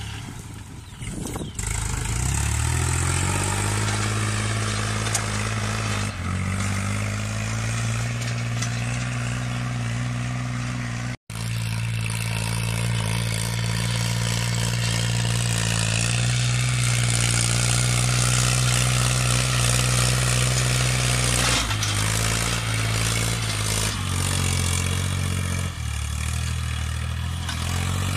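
Kubota L3608SP tractor's three-cylinder diesel engine running under load while pulling a disc plough through a field, its note rising about two seconds in and shifting slightly a few times. The sound cuts out for an instant near the middle.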